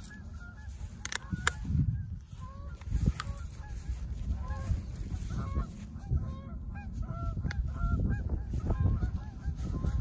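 Geese honking, many short overlapping calls repeating throughout, over a low rumble of wind on the microphone.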